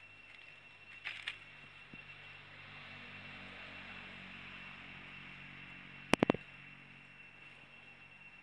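Three sharp clicks in quick succession about six seconds in, over a faint steady background with a thin high whine; a softer cluster of clicks comes about a second in.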